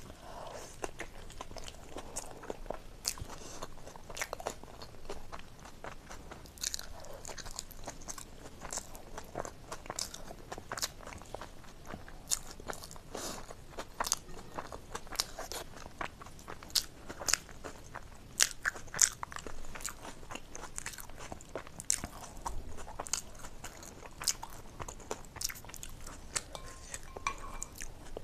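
Close-miked chewing of momo dumplings eaten by hand, with many short, sharp wet mouth smacks and clicks.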